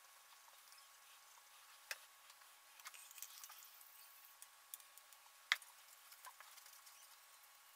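Faint, scattered small clicks and taps at irregular intervals, the sharpest one about five and a half seconds in.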